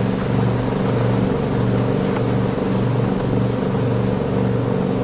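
Speedboat engine running steadily at speed, an even droning hum, over the hiss of water rushing past the hull and wake.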